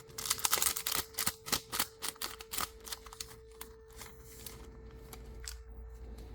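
A One Piece Card Game booster pack's foil wrapper crinkling and tearing open: a dense run of crackles through the first three seconds, then a few scattered rustles.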